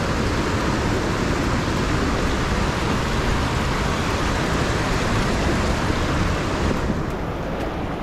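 Tamas river water rushing over and between sandstone boulders in rapids below a waterfall: a steady, loud rush of white water that turns a little duller near the end.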